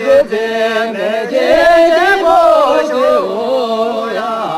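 Male singing in a chanted style, with long held notes that bend up and down in pitch.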